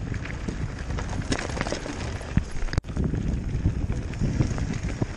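Mountain bike rattling over a rough, rocky dirt track, its tyres crunching on loose stones with many small irregular knocks, and wind buffeting the microphone. The sound cuts out for an instant a little over halfway in.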